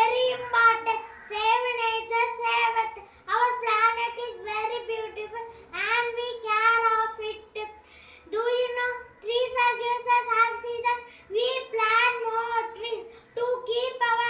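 A young child's high voice chanting in short sing-song phrases, each held on nearly one pitch, with brief pauses between them.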